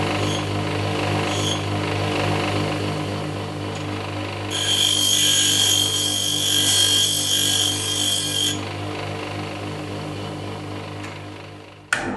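A power tool in a metal shop runs with a steady hum. For about four seconds in the middle, a harsh, bright hiss of metal being worked rises over it. The hum cuts off abruptly near the end.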